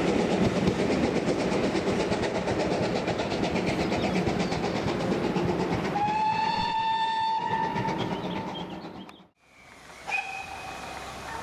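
Steam train running past, its wheels clicking steadily over the rail joints. About two-thirds of the way through, the GWR locomotive's steam whistle gives one steady blast of about two seconds. The sound then cuts out abruptly.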